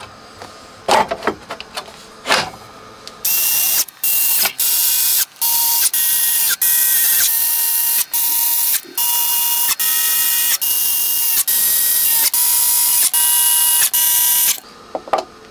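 Cordless screwdriver driving screws into a metal equipment case panel, its motor whirring in a long series of short runs of about half a second to a second each, starting about three seconds in. A few knocks from the panel being handled come first.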